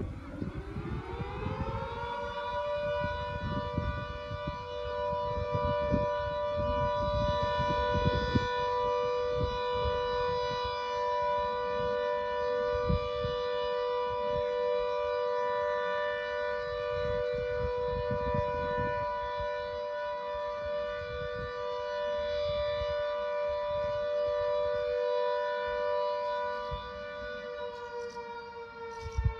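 Secomak CS8 siren sounding its monthly test, which checks the alert sirens for the State Hospital at Carstairs. It winds up in pitch over the first couple of seconds, then holds a steady chord of several notes. Near the end it begins to wind down.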